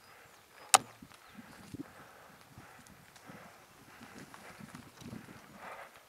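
Bicycle rolling down a leaf-covered dirt singletrack, its tyres crackling over dry leaves and the frame rattling on the rough ground, with one sharp knock about three-quarters of a second in.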